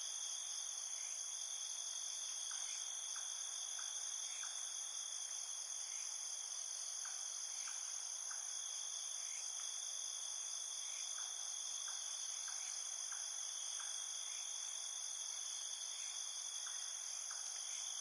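Steady, high-pitched chirring of an insect chorus that does not let up, with faint soft ticks here and there.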